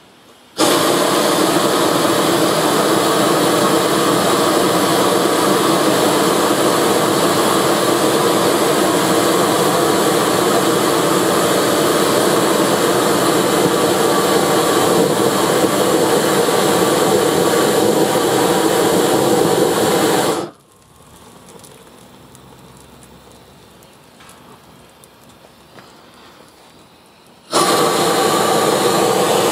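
A large blowtorch firing a jet of flame, a loud, even rush. It cuts off about twenty seconds in, and after about seven quieter seconds it fires again near the end.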